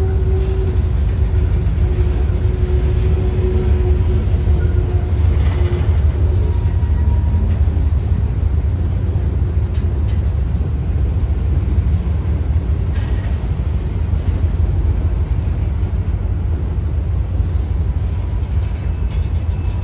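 Freight train of covered hopper cars rolling past: a steady low rumble of steel wheels on rail, with a faint squeal in the first few seconds and a few short clanks.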